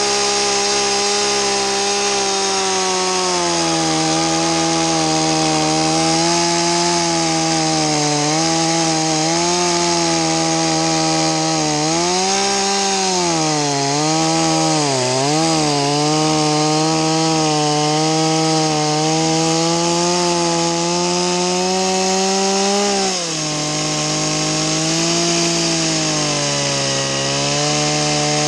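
Two-stroke gas chainsaw plunge-cutting a mortise into a log, the engine held at high revs under load. Its pitch sags and recovers as the bar bites, with several quick dips about halfway through and a sharp drop shortly after.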